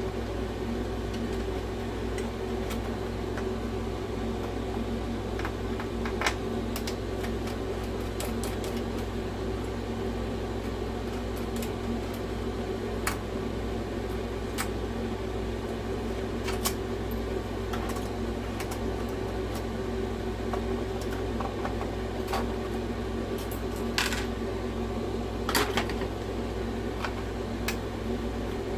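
Steady background hum with scattered sharp clicks and taps of plastic and metal parts being handled as an original PlayStation 4's power supply is worked loose from the console, the loudest clicks near the end.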